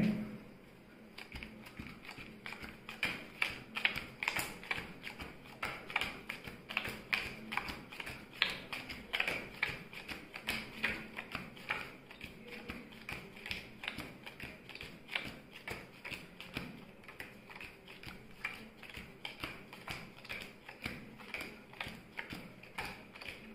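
Playing cards dealt quickly one at a time into three piles on a cloth-covered surface, each card landing with a soft tap, several a second.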